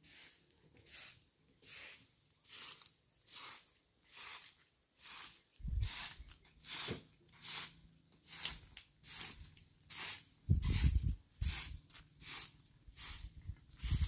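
Short bundled-straw hand broom sweeping dry, dusty dirt ground: steady rhythmic swishes, a little over one stroke a second, with a few low rumbles now and then.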